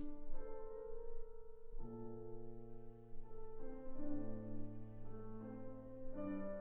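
Instrumental background score: slow, held chords that change every second or two.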